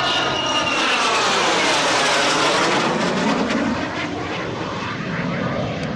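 Jet noise of a twin-engine F/A-18 Hornet fighter flying past, a dense whooshing rush with a sweeping, phasing quality. It is loudest in the first few seconds and eases off after about four seconds as the jet moves away.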